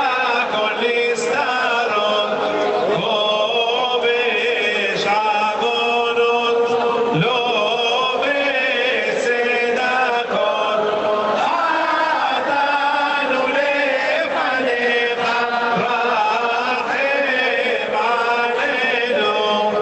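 A huge crowd of worshippers chanting Selichot penitential prayers together, many voices singing in unison without a break, played back from a recording.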